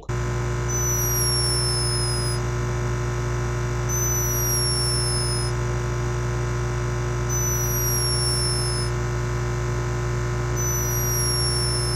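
A sleeping hummingbird snoring: four high, thin whistles about every three seconds, each sliding slightly down in pitch. Under them runs a steady hum that comes from the camera microphone's raised sensitivity.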